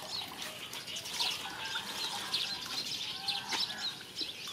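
Small birds chirping: many short, high calls, overlapping and repeating.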